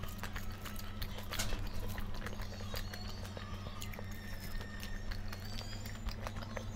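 A person eating: irregular clicks and smacks of chewing, over a steady low hum.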